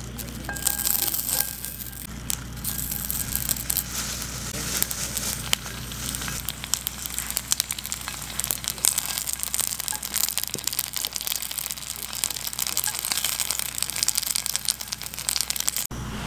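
Dumplings frying in a pan: a steady sizzling hiss full of small crackling pops, which stops abruptly near the end.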